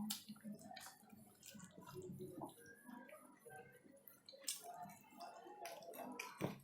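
Faint, close eating sounds: chewing and wet squishing of chicken curry and rice, with a few sharp clicks now and then.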